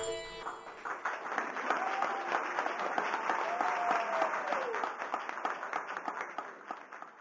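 Audience clapping after the final song of a yakshagana performance, dense applause that tapers off and dies away near the end.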